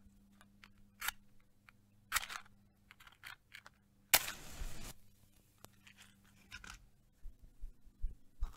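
A wooden match struck on a matchbox: two short scrapes, then about four seconds in a strike that catches, with a hiss from the flare lasting under a second. Small clicks and rustles follow.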